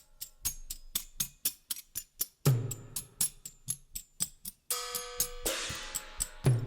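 Background music with a drum beat: quick hi-hat ticks and a deep bass thump about every four seconds. A held chord comes in about five seconds in, followed by a rising swell near the end.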